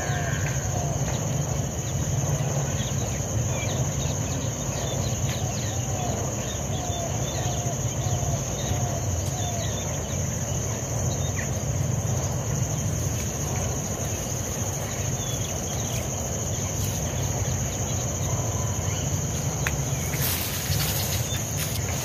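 Steady high-pitched trilling of insects in a field crop, with a bird giving a run of short repeated calls during the first half.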